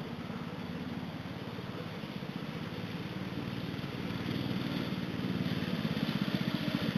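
Small pull-start engine of a homemade off-road go-kart running under way, a steady even pulsing that starts faint and grows louder toward the end as the kart comes nearer.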